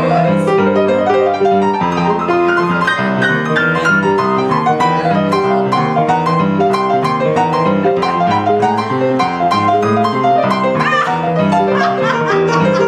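Piano playing a boogie-woogie improvisation: a steady, repeating bass pattern under quick higher-register runs and chords.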